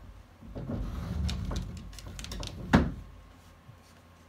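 Low scraping and bumping against a refrigerator as a ball stuck in the gap beside it is worked free, then one sharp knock a little under three seconds in.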